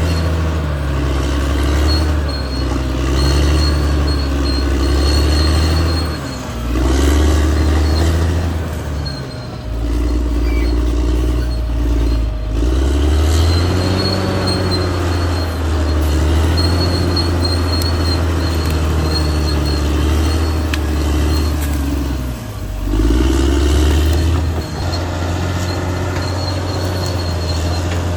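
Caterpillar D6R XL crawler bulldozer's diesel engine working under load, its note dipping and recovering several times as the load changes. A faint, high squeal from the tracks comes and goes throughout.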